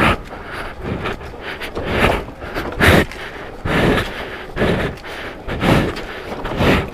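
A wrecked scooter being pushed by hand over rocky ground, with footsteps: rough scuffs and rattles recurring about once a second.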